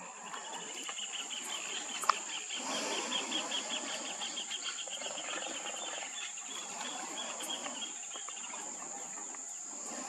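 Insects chirring: a steady high buzz, with a fast pulsing trill that fades out after about seven seconds. A single sharp knock about two seconds in.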